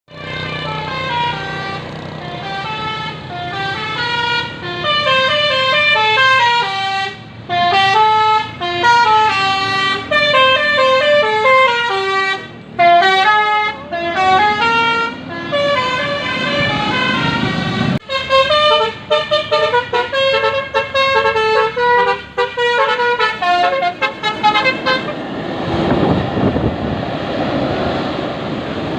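A tour bus's Basuri telolet multi-tone air horn playing fast melodies of short stepping notes, phrase after phrase, with brief breaks. About 25 seconds in the horn stops and a steady rushing vehicle noise is left.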